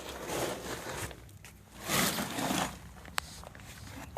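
Irregular rustling and scuffing, like footsteps and handling on dirt, with a sharp click about three seconds in.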